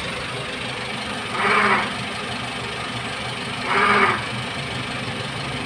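Toyota Avanza 1.3-litre engine idling, with a groaning 'nguk' noise that comes twice, each lasting about half a second, roughly two seconds apart. The noise was traced to a failing water pump and tensioner pulley bearing.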